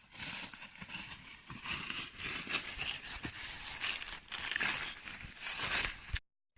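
Dry leaves and twigs rustling and crackling irregularly as something moves through forest undergrowth, cutting off abruptly just before the end.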